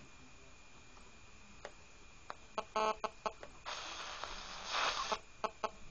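1965 Magnavox transistor radio tuned across the FM band between stations: hiss of inter-station static that swells and fades, a brief pitched blip about three seconds in, and scattered short clicks.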